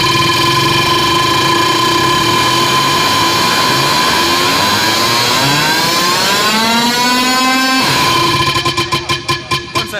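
DJ sound-check effect played loud through a sound system: a steady buzzing electronic drone, engine-like, that sweeps up in pitch from about four seconds in and cuts off sharply near eight seconds, then returns and stutters in rapid chops.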